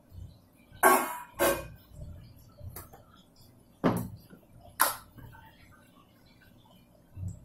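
Steel plate knocking against a steel mixing bowl as chopped vegetables are tipped in: five sharp metallic clinks in the first five seconds, the first the loudest.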